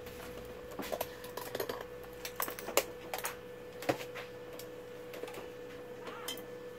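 Irregular light clicks and knocks of test gear being handled and moved on a workbench, most of them in the first four seconds, over a faint steady hum.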